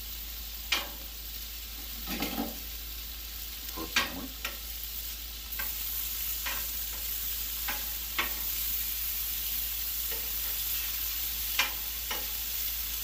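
Food frying on a Blackstone flat-top griddle: a steady sizzle that gets louder about halfway through, with several sharp clicks of a utensil against the steel griddle top.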